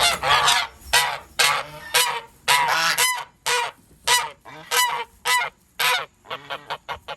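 Geese honking over and over, about two harsh calls a second, the calls getting shorter and quicker near the end.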